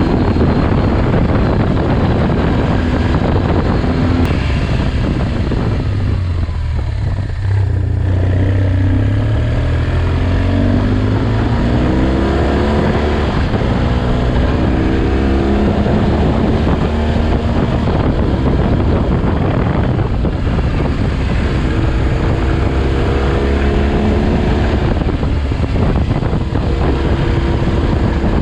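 Vehicle engine running under load, its pitch rising and falling repeatedly with throttle and gear changes, with a brief dip about seven seconds in before the pitch climbs again.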